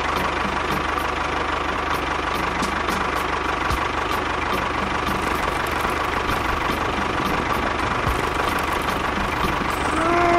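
Tractor engine sound running steadily at idle with a regular knock. A short pitched tone rises and falls near the end.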